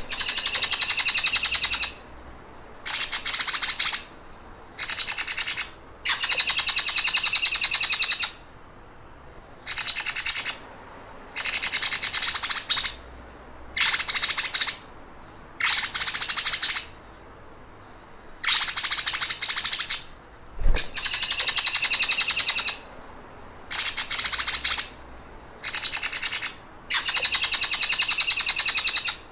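Songbird giving the rapid, mechanical 'sewing machine' (mesin jahit) trill: bursts of fast, even, high chattering, each one to two seconds long, repeated about fifteen times with short pauses between.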